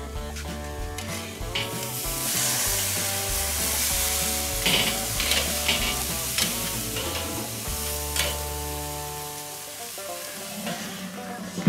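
Flank steak sizzling on the hot grate of a charcoal kettle grill as it is turned with metal tongs. The sizzle swells about two seconds in and fades away near the end, with a few clicks of the tongs against the grate.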